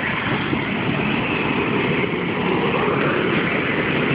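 Medical helicopter running on the ground with its engine and rotor turning, a loud, steady mechanical noise without a break.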